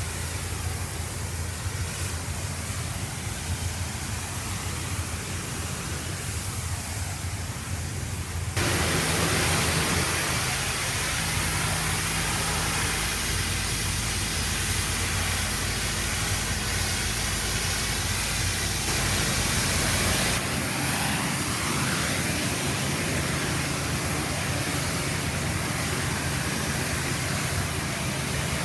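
Pressure washer wand spraying rinse water onto pavement, a steady hiss over the low hum of the pressure washer's engine. The spray gets abruptly louder and brighter about a third of the way in, and changes again about two thirds of the way in.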